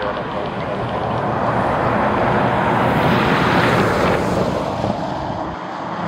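Airliner passing close by, its engine noise swelling to a peak about halfway through and then fading, with gusty wind buffeting the microphone.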